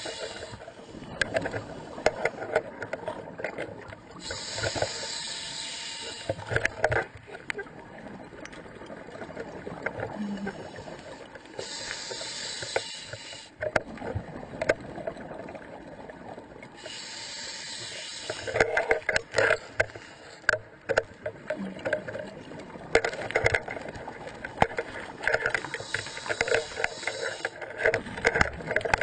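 A scuba diver breathing underwater through a regulator. A hiss of about two seconds comes three times, some six seconds apart, with bubbling, clicks and knocks in between.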